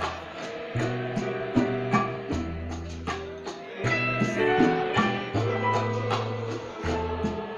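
A live band playing on an outdoor stage: drum hits over held bass notes, with guitar.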